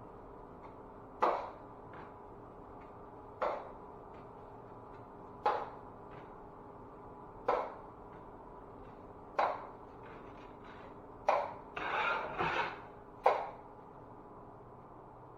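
Drywall tool scraping across the wall in short strokes, about one every two seconds, with a quick flurry of strokes near the end.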